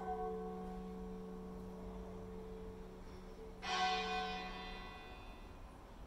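Church tower bells tolling. One bell is struck at the start and rings on with a long low hum. A second, brighter strike comes about three and a half seconds in.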